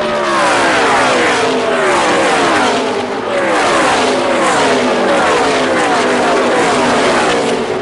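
NASCAR Truck Series race trucks' V8 engines at full throttle, passing close one after another in a pack. Each engine note drops in pitch as it goes by, with several overlapping, and the noise eases off near the end.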